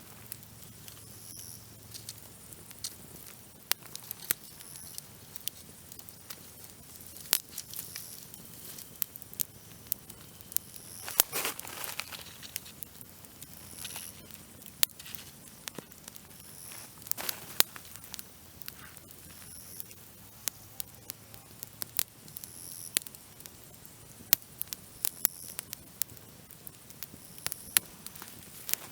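Dry branches crackling and popping in a campfire, with sharp, irregular snaps. Faint high-pitched chirps recur every second or two behind them, likely grasshoppers.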